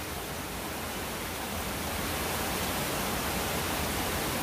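Steady hiss of outdoor background noise with no distinct events, growing slightly louder about halfway through.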